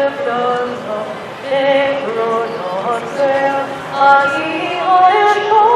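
A woman singing a national anthem unaccompanied, a slow melody of long held notes.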